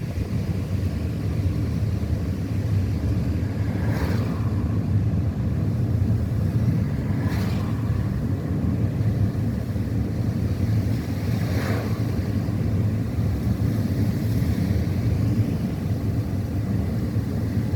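Steady rumble of a car driving, with road and wind noise heard from inside the cabin, and three brief hissing swishes.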